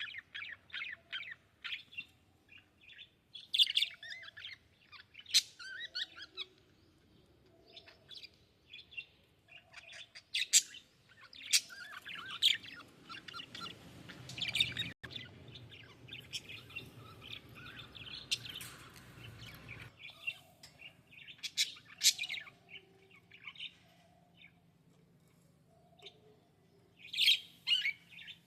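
Small parrots, budgerigars or lovebirds, chirping in quick, irregular bursts of short calls, with the loudest calls near the end. A faint low hum sits under the calls for several seconds in the middle.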